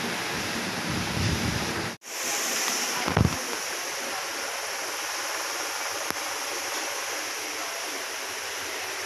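Steady rushing hiss of background noise, broken by a sharp dropout about two seconds in, with a short low thump about a second after that.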